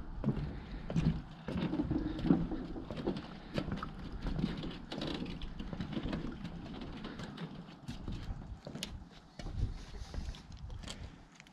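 Footsteps walking along a wooden dock, shoes knocking on the plank boards in an irregular, hollow clip-clop.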